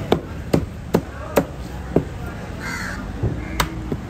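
Knife chopping raw yellowfin tuna into chunks on a wooden cutting board: about six sharp knocks of the blade on the board, roughly two a second with a pause in the middle. A crow caws once about two-thirds of the way through.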